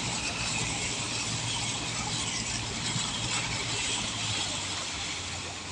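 A vehicle wading through floodwater: water rushing and splashing along its side over the steady hum of its engine.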